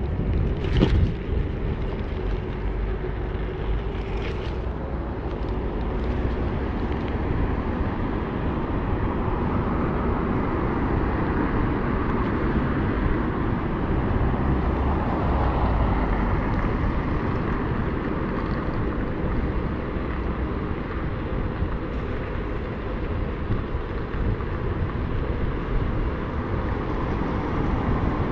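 Riding noise from an Inokim Quick 4 electric scooter at about 20 km/h: steady wind buffeting on the handlebar-mounted camera and tyre rumble on the pavement. Two short knocks from bumps come about a second and four seconds in.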